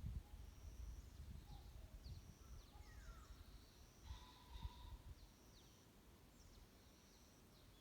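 Faint forest birdsong: small songbirds repeating short, high, thin notes and quick downward slurs, with a lower falling note about three seconds in. A low rumble sits underneath and eases after about five seconds.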